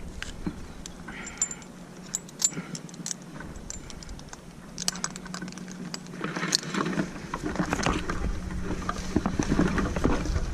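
Climbing hardware handled between cuts: light metal clicks and clinks of carabiners and a Petzl Zigzag, then rustling from about six seconds in, over a faint steady hum.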